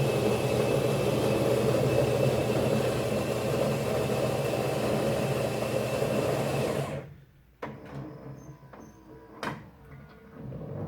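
Built-in coffee machine's grinder grinding beans: a loud, steady whirr with a thin high tone that stops sharply about seven seconds in. After it stops, a few faint clicks and knocks come from the machine.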